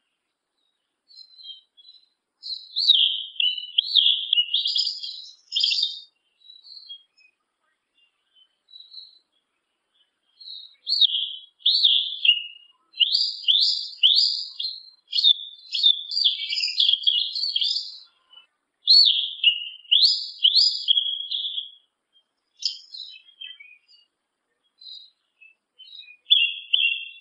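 Yellow-legged thrush (sabiá-una) singing: runs of fast, high, whistled notes that slide up and down. A pause of several seconds separates a first short run from a long, dense one, and scattered single notes follow it.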